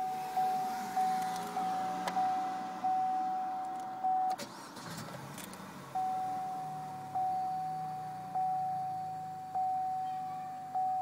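Chevrolet Cruze dashboard warning chime ringing over and over, about twice a second at first. About four seconds in the chime stops while the engine cranks and fires; it then idles with a low steady hum as the chime resumes, now about once a second.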